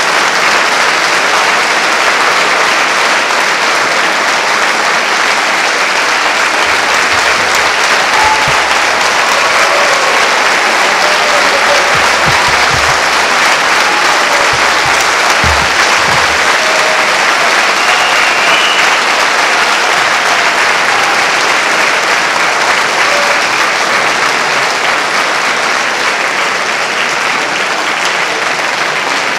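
Concert-hall audience applauding steadily, with the clapping holding at an even level throughout.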